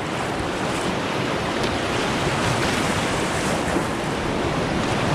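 River rapids rushing steadily: a constant, even noise of fast whitewater, "pretty rumbly tumbly".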